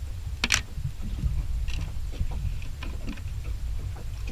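Light clicks and knocks of utensils and dishes being handled at a meal, over a steady low rumble, with one brief sharp rustle about half a second in.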